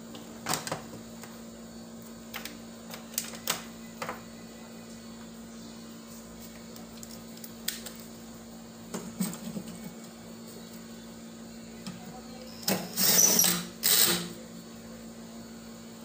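Small tools and parts clicking and clattering as they are handled, then a cordless drill running in two short bursts near the end, about half a second apart, driving screws. A steady low hum underlies it all.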